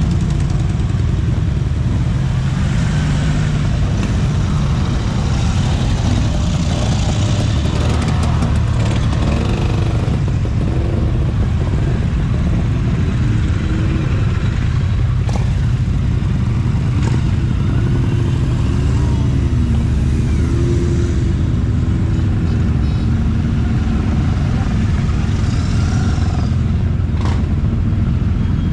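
Motorcycles riding past one after another in a continuous, loud engine rumble. Engine notes rise and fall as the bikes go by.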